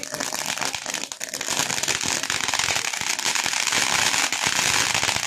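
A ground fountain firework spraying sparks, with a steady, dense hissing crackle.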